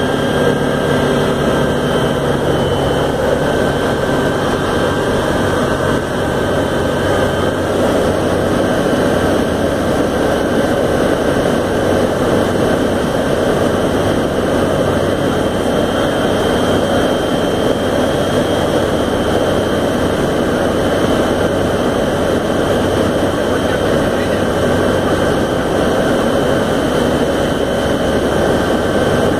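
Single-engine light aircraft's engine and propeller running steadily in flight: a constant loud drone with a thin high whine on top, unchanging throughout.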